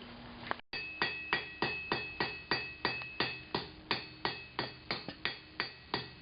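Hand hammer striking hot steel on an anvil in a steady run of about three blows a second, each with a short metallic ring, starting about a second in. The blows are knocking down the corners of a square taper to make it eight-sided before rounding it.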